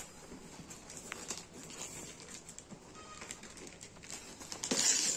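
Newspaper gift wrapping rustling and crinkling as a wrapped box is handled: faint scattered rustles, then a louder burst of paper rustling near the end.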